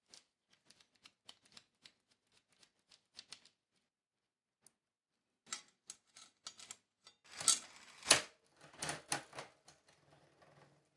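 Metal clicking and clattering of a bicycle chain being worked by hand: light, sparse clicks for the first few seconds, then a denser, louder rattle of chain links from about halfway through, peaking near the end.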